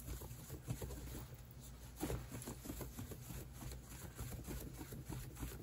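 Faint, irregular rustling and flapping of a folded cloth waved by hand to fan air over a leather edge, drying freshly applied burnishing ink.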